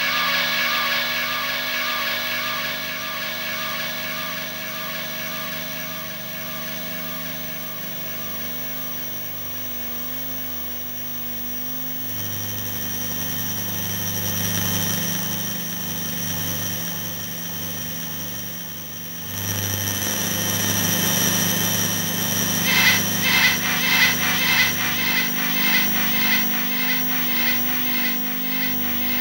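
Experimental electronic noise music: layered steady drones and hiss. It gets louder about two-thirds of the way through, then turns into an even pulsing of about two to three beats a second near the end.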